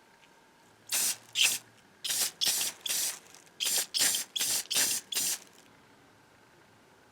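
Aerosol spray can hissing in about ten short bursts, in quick groups, sprayed onto the cast iron drawer pulls.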